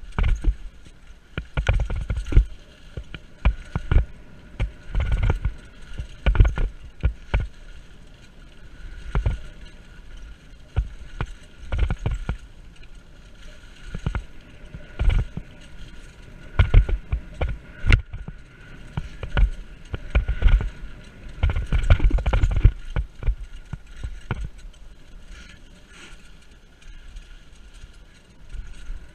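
Mountain bike riding fast over leaf-covered dirt singletrack: irregular thumps, knocks and rattles as the bike and camera mount jolt over bumps, heavier in clusters over rough stretches, over a steady rushing background of riding.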